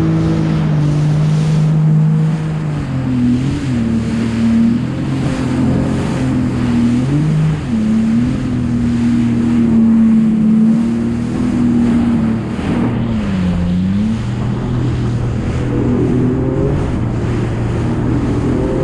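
Jet ski engine running at speed, its pitch dipping briefly and climbing back about three times, with water spray hissing off the hull.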